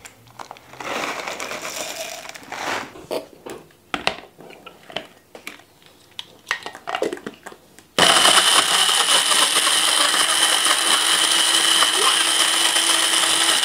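Countertop blender with a glass jug running steadily, blending tomato juice with dry cat food. It starts abruptly about eight seconds in and stops at the very end. Before that come rattles and clicks as dry kibble goes into the jug and the blender is handled.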